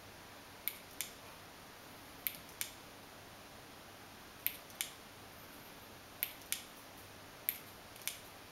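Sharp, short clicks in pairs, the two clicks about a third of a second apart, five pairs roughly every one and a half to two seconds, over a faint steady hiss.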